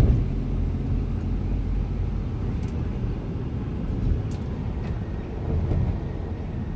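Shuttle van driving, heard from inside the cabin: a steady low engine and road rumble, with a short knock at the start and a few faint clicks.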